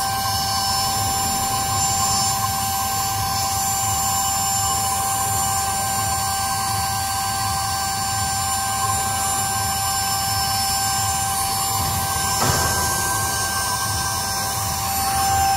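Steady high-pitched whine of a CNC micro-drilling machine's high-speed spindle drilling tiny holes in a copper tube, over a low machine hum, with a brief knock about twelve seconds in.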